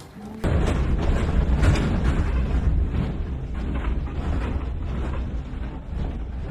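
Earthquake shaking heard from inside a building: a loud deep rumble that starts abruptly about half a second in, with irregular rattling and clattering of loose objects over it.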